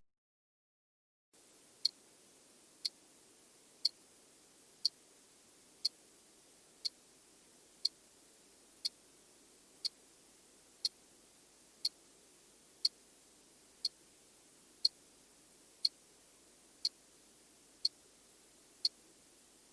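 Clock ticking sound effect: a sharp tick exactly once a second, about eighteen in all, over a faint hiss, beginning after a second or two of silence.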